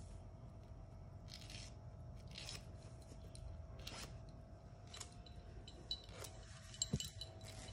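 A dog's claws being filed by hand: faint, short rasping strokes about once a second. A few light metallic clinks near the end.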